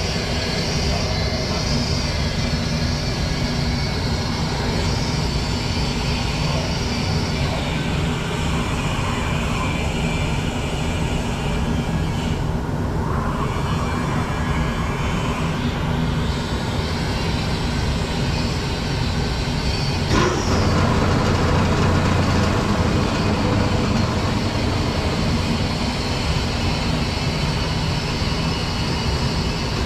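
RandBright HD-100 centerless grinder/polisher running under test: a steady motor hum with a hiss over it. The sound steps up suddenly in loudness about two-thirds of the way through.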